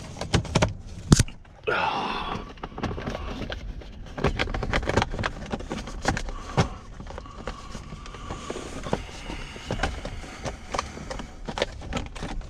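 Plastic steering-column trim pieces being handled and fitted together: a run of clicks, knocks and scraping, with one sharp knock about a second in.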